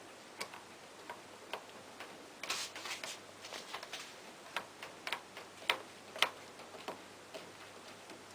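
Irregular light clicks and taps of washing-machine parts being handled during inlet-valve work, roughly one every half second, with a quick flurry about two and a half seconds in and the sharpest two clicks near the end.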